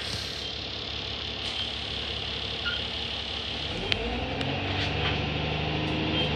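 Bus engine heard from inside the saloon, running slow with small rattles and clicks from the cabin, then from about four seconds in the engine note rises and steadies as the bus pulls away.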